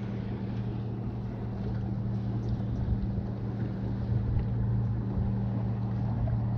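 Small outboard motor idling with a steady low hum, with wind noise on the microphone.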